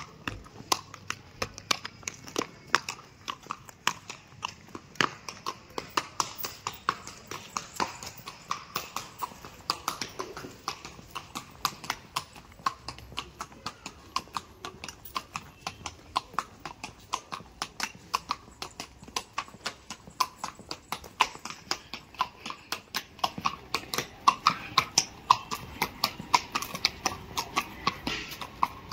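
A ridden horse's hooves clip-clopping in a steady rhythm, about three hoofbeats a second, growing louder in the last few seconds.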